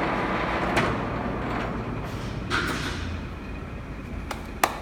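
Monarch 16C engine lathe running at low spindle speed, its gear and drive noise slowly fading, with several sharp metallic clicks near the end, one of them loud.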